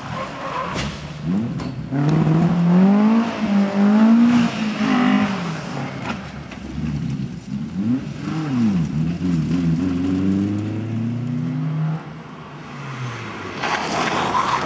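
Rally car engine revved hard through the gears, its pitch climbing and dropping again and again with each gear change and lift. It fades about twelve seconds in, and a second rally car is heard coming up near the end.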